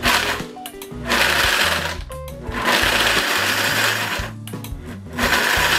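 Hamilton Beach professional blender run in pulse mode, its motor and blades coming on in four bursts of half a second to nearly two seconds each as it chops almonds and sunflower seeds into a thick mayonnaise dressing.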